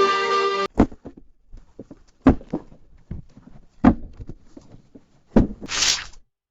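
Fart sound effects. A long, buzzy, pitched fart cuts off suddenly under a second in, then four short, sharp fart pops come about a second and a half apart. The last pop trails into a brief hissy rush of air.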